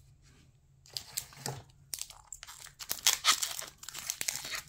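Foil wrapper of a Pokémon trading card booster pack crinkling and crackling as it is handled and torn open. It starts about a second in and gets louder and denser toward the end.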